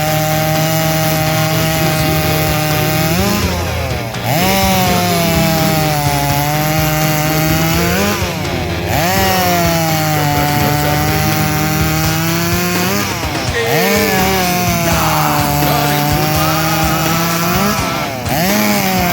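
STIHL MS250 two-stroke chainsaw cutting wood at full throttle, through about four cuts in a row: the engine note sags under load through each cut, then rises as the chain breaks through, with a short drop around 4, 8.5, 13.5 and 18 seconds in.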